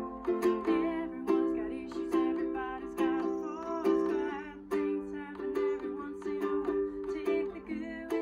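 Ukulele strummed in a steady rhythm, its chords ringing between the strokes, with a woman singing along.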